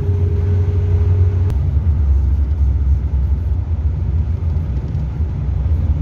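Hillman Super Minx four-cylinder car on the move, heard from inside the cabin: a steady low rumble of engine and road noise. About one and a half seconds in there is a sharp click, a faint steady whine stops, and the rumble changes slightly.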